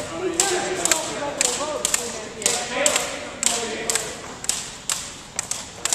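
Two double dutch ropes turned in alternation, slapping a hardwood gym floor in a steady rhythm of about two sharp taps a second.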